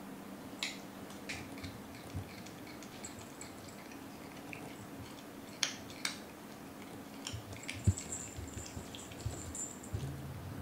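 Scattered light clicks and taps of cats pawing and biting at the toys dangling from a small sisal-post cat tower, with one louder soft thump about eight seconds in, over a low steady room hum.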